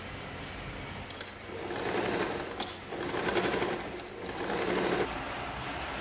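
Sewing machine stitching through folded black nylon webbing in three short runs of about a second each, starting about a second and a half in after a few clicks.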